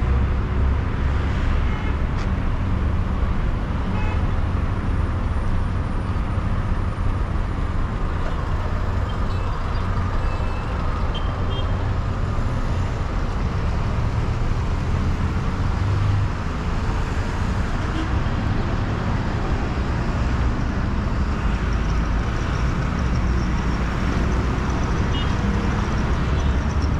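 City road traffic: a steady low rumble of cars and minibuses idling and moving slowly in a queue at traffic lights.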